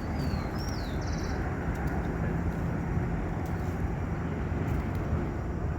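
Steady low outdoor rumble, with a bird giving a few quick high, falling chirps in the first second or so.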